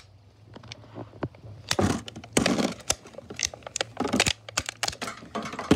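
Clear plastic toy packaging crinkling and crackling as fingers pull it open to free a Beyblade part. It is quiet for the first second or so, then comes in a run of irregular crackles and rustles.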